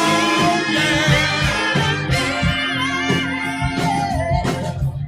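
Live band playing a song, with sustained sung vocal notes over steady drum beats.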